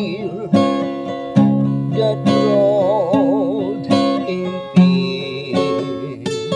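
A man singing to his own strummed acoustic guitar, holding some notes with a wavering vibrato.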